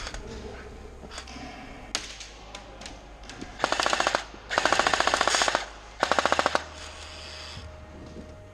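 Airsoft M249 light machine gun firing three full-auto bursts a little over halfway through, the middle one the longest at about a second. A few scattered single sharp clicks come before them.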